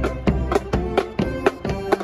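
Marching band playing as it passes: saxophones hold a melody over drum and cymbal strikes, about four a second.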